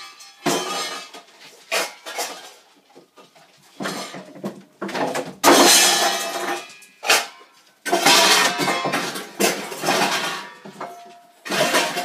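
Dishes and dog bowls clattering in a kitchen sink in irregular bursts, growing louder and busier about halfway through, as a puppy rummages among them. Music plays under it.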